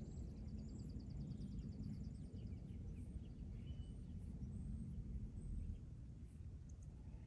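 Low, steady rumble of wind on the microphone, with small birds calling: a fast high trill for the first couple of seconds, then scattered chirps and short whistles.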